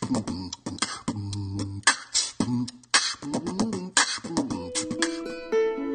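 Human beatboxing: a rhythmic beat made with the mouth, with a sharp hissing snare-like hit about once a second over lower vocal thumps and hums. Near the end instrumental music comes in.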